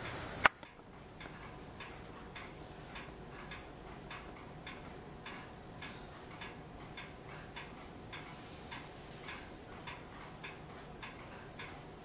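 A single sharp click, then steady, regular ticking at about three ticks a second over a faint hum.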